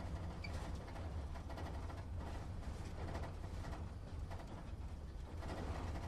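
Truck engine heard from inside the cab, running at low revs: a steady low rumble with light rattles and knocks over it.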